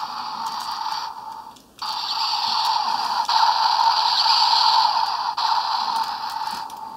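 Bandai DX Deka Wing Robo toy in cannon mode playing an electronic sound effect through its small built-in speaker. The sound is thin with no bass. It comes in two long stretches with a short break about one and a half seconds in, and it stops just before the end.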